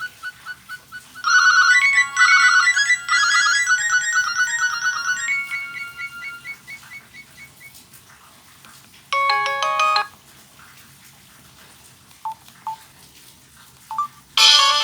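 Nokia ringtones played through a Samsung SGH-A157 flip phone's speaker: a melody of electronic notes that trails off about halfway through, a short burst of notes a couple of seconds later, then another ringtone starting loudly near the end.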